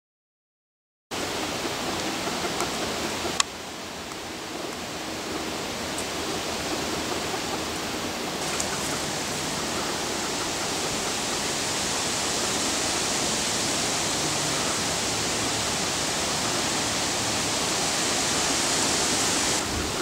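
Steady rushing noise, even across high and low pitches, starting about a second in, with one sharp click about three and a half seconds in.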